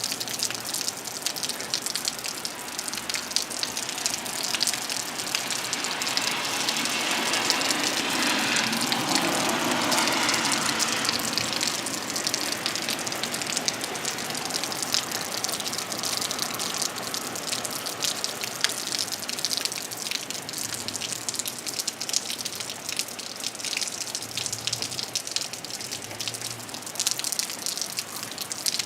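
Heavy rain falling, a steady rush with many separate drops and splashes. About a quarter of the way in it swells louder for several seconds, then settles back.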